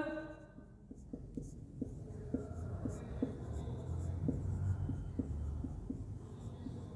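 Marker pen writing on a whiteboard: faint, quick ticks and scrapes as each letter stroke is drawn, at an uneven pace of roughly two a second.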